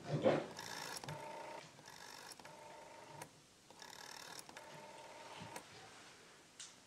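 Corded telephone placing a call: a tone from the handset that sounds in short spells broken by gaps.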